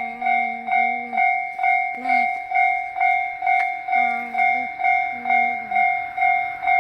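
Japanese railway level-crossing alarm ringing: an electronic bell tone repeating about twice a second, the warning that a train is approaching. A lower held tone comes and goes several times underneath it.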